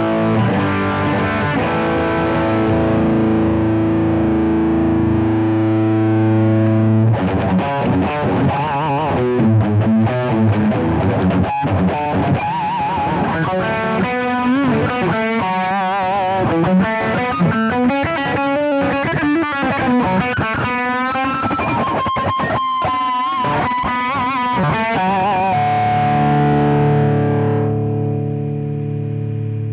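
Electric guitar played through an iSet Hot Distortion pedal, a thick, saturated gain sound. A held chord rings for several seconds. Then come quicker riffs and lead lines with string bends and a sustained note with vibrato. A final chord is left to ring out and fades slightly at the end.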